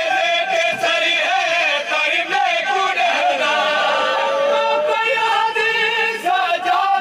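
Male voices chanting a noha, a Shia lament, with several voices singing together in a sustained, wavering melody. About four seconds in, one note is held and drawn out.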